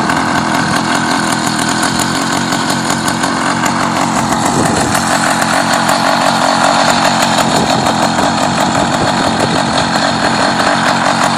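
Small engine of a motorized bicycle running steadily with a fast, even buzz.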